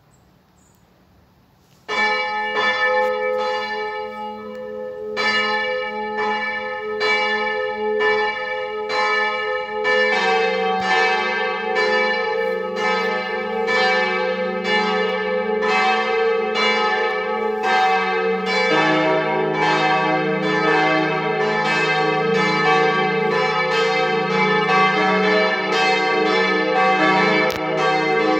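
Church bells starting a partial peal: one bell begins striking about two seconds in, then a second, lower bell joins around ten seconds in and a third, lower still, a little after halfway, their strokes overlapping into a dense, steady ringing.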